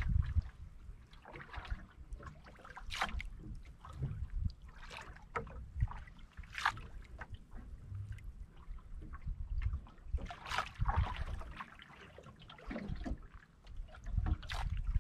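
Sea water lapping and slapping against the hull of a drifting outrigger boat in irregular surges every second or two, over a low rumble of wind on the microphone.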